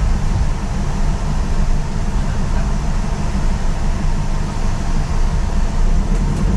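Steady road and engine rumble of a moving ambulance van, heard from inside its rear patient compartment, with a hiss of noise above the low rumble.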